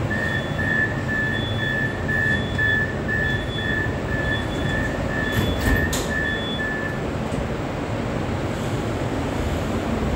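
Metro train running with a steady rumble inside the car, while an electronic beep repeats about twice a second and then stops about seven seconds in. A single sharp click sounds just before the beeping ends.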